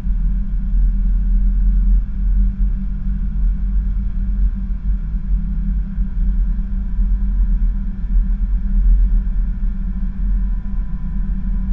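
Airliner accelerating down the runway on its takeoff roll, heard from the cockpit as a steady, loud low rumble of engines at takeoff power and the run along the runway. A faint steady whine joins about seven seconds in.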